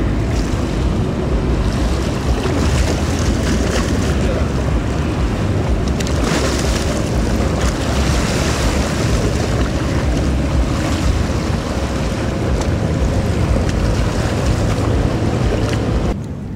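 Passing Horizon fast ferry running close by: a steady low engine rumble and rushing wake water, with wind buffeting the microphone. The sound drops suddenly in level near the end.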